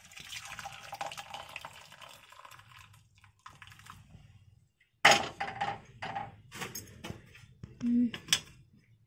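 Hot tea poured from a steel saucepan into a steel tumbler, a splashing stream that tapers off after about three seconds. From about five seconds in, steel utensils clink and knock against the stove and counter.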